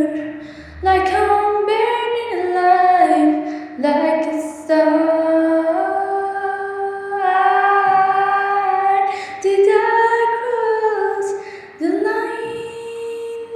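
A woman's voice singing unaccompanied, in long held notes that step and slide from pitch to pitch with short breaths between phrases.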